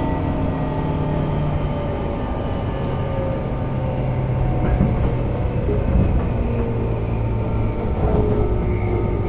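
Tobu 9000 series electric train's chopper control and traction motors heard from inside the car: several steady whining tones over the running rumble, some falling slowly in pitch. This is MoHa 9204's summer-only chopper sound, which at low speed changes to resemble the Hankyu 2200 series chopper cars or the JR 201 series.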